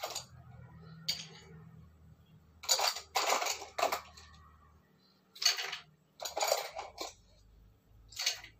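A metal utensil clinking and scraping against a bowl in short, irregular bursts: a cluster about three seconds in, then single bursts near five and a half, six and a half and eight seconds.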